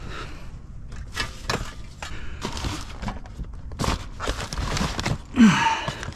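Items in a curbside junk pile being handled and moved: a run of irregular rustles, scrapes and knocks, the loudest a sharp scrape with a falling tone near the end.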